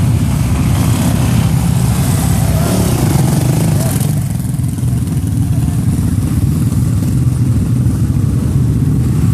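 Several dirt bike engines running, with one bike riding close past during the first four seconds.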